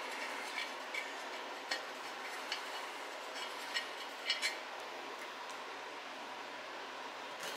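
Rear-axle gear oil running and dripping from the loosened differential cover into a plastic drain pan, with scattered light ticks and taps as the stamped-steel cover is worked off the housing; the loudest pair of clicks comes about four seconds in.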